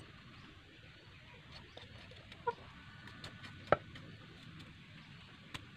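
A few light knocks and clicks as a bamboo shoot is peeled by hand with a bolo knife, the sharpest knock about two-thirds of the way in. A brief faint animal call is heard near the middle.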